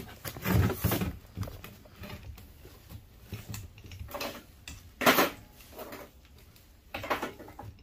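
Hand tools and small metal scrap parts being handled and set down on a plastic bin lid: a few scattered knocks and clanks, the loudest a sharp clank about five seconds in.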